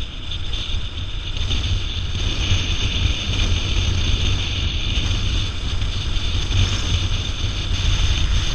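Wind buffeting the microphone of a camera on a moving motorcycle, a steady rumble with a hiss over the noise of the bike, getting a little louder in the first couple of seconds.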